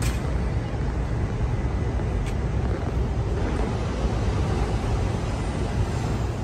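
Steady low rumbling outdoor noise, with a faint click about two seconds in.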